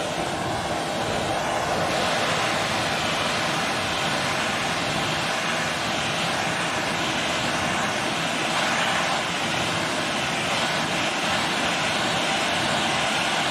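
Oxy-fuel torch flame blowing with a steady hissing rush as it heats the tang of a steel knife blade.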